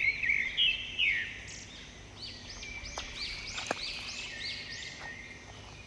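Small birds calling, with a quick run of rising-and-falling chirps, about three a second, from about two seconds in.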